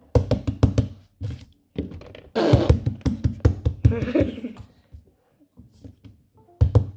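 A quick run of knocks and taps as hands handle fidget toys close to the phone, with a longer stretch of rustling and knocking in the middle and two more knocks near the end.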